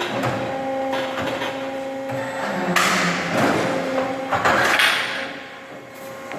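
CNC pipe bending machine at work: a steady machine hum with two sudden, louder bursts of noise, one about three seconds in and one about a second and a half later. It quiets down near the end.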